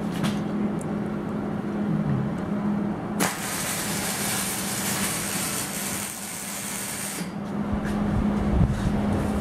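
Stick (arc) welder arc crackling and hissing for about four seconds, starting about three seconds in and cutting off suddenly, over a steady low hum.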